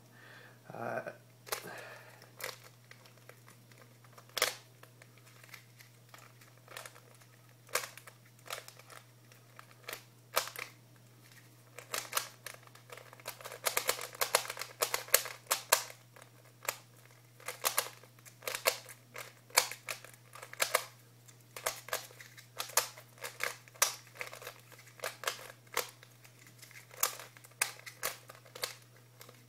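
Plastic Rubik's Cube being turned by hand: irregular clicks and clacks as the layers snap round, coming in quick runs with short pauses between, over a steady low hum.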